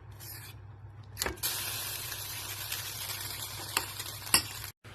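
Pot boiling on the stove: a steady hiss that starts suddenly about a second and a half in, with a few sharp clicks of a utensil against the pot, cut off abruptly just before the end.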